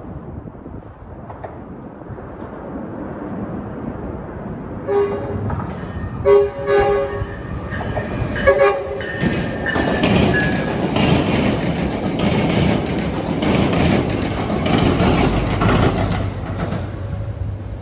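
Metrolink commuter train with a Hyundai Rotem cab car in the lead, approaching with a rising rumble. About five seconds in, its chord horn sounds a quick series of short blasts. The train then passes close by, its wheels clattering rhythmically over the diamond crossing.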